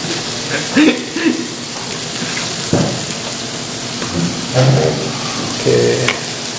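Beef sizzling on a grill, a steady hiss throughout, with a few brief muffled voice sounds and a single dull knock about three seconds in.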